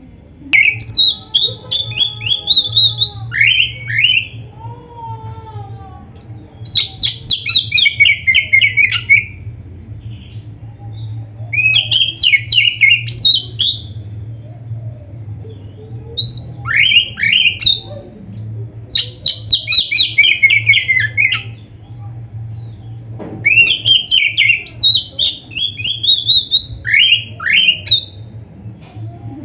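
Oriental magpie-robin (black-breasted kacer) singing loud phrases of rapid, varied, harsh and whistled notes. There are six phrases, each about one to five seconds long, broken by short pauses, over a steady low hum.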